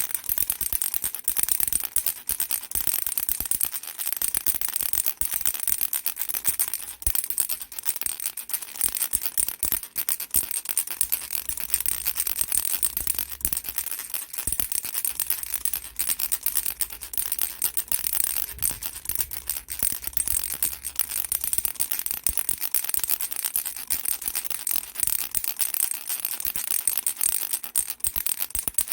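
Baby rattle shaken continuously: a dense, bright clatter of rapid clicks, with brief breaks every few seconds.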